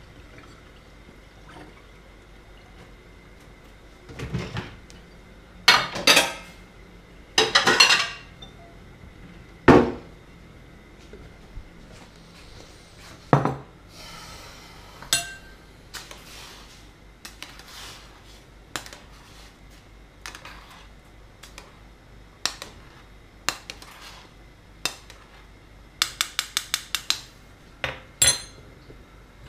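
Dishes and cutlery clattering: a bowl, plate, spoon and steel pot being handled and set down in a string of sharp clinks and knocks, loudest in the first third, with a quick run of about seven clicks near the end.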